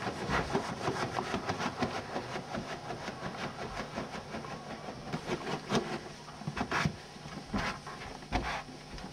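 Footsteps and rustling handling noise from a handheld camera carried while walking, a dense run of short clicks and knocks. In the second half, heavier thumps come about once a second as the walking moves onto carpeted stairs.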